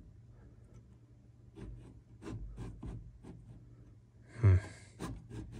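Light taps, clicks and rubbing as a hand-held electric accelerator pedal is shifted against the firewall and carpet. About four and a half seconds in comes a short, loud breathy voice sound, followed by a few more sharp clicks.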